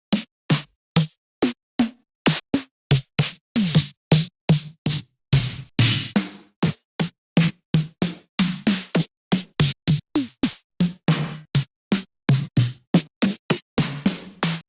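Individual 80s-style synthwave drum machine samples played one after another as separate one-shots, about three a second, each cut off by a brief silence. The hits vary from ones with a low, sometimes downward-sliding body to noisy snare- or clap-like cracks.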